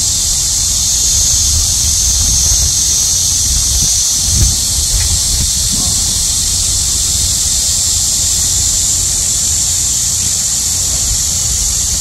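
A chorus of summer cicadas buzzing loud and steady from the trees, one continuous high-pitched drone. A low rumble runs underneath, with a brief thump about four seconds in.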